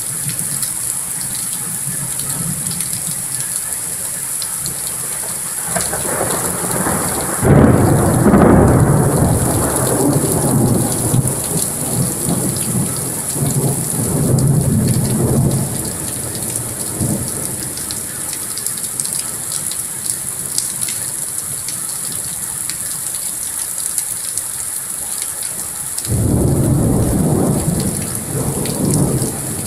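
Heavy rain pouring steadily, with thunder: a rumble that breaks into a loud clap about seven seconds in and rolls on for several seconds, and another rumble near the end.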